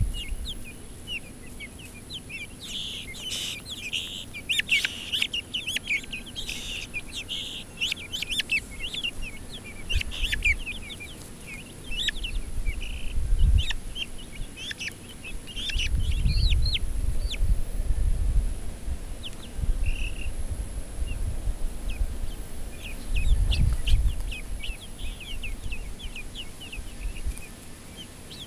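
Young chickens peeping and chirping: a dense run of quick high chirps over the first half, thinning out later. Bursts of low rumble come and go underneath.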